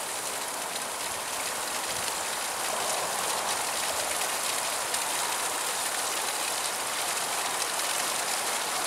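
Steady rush of flowing creek water, growing slightly louder over the first few seconds.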